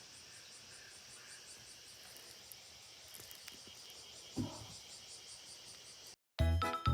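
Insects chirping steadily, a faint pulsing trill high in pitch, with one soft knock about four and a half seconds in. Background music cuts back in near the end.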